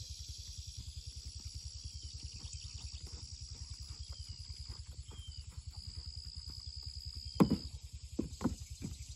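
Horse trotting on arena sand, its hoofbeats soft and even, under a steady high drone. In the last two seconds come a few loud, sharp thumps.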